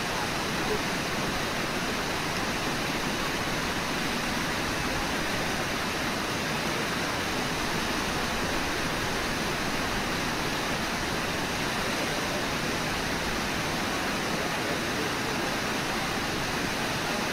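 Steady rush of whitewater pouring over Brooks Falls, a low waterfall on the Brooks River.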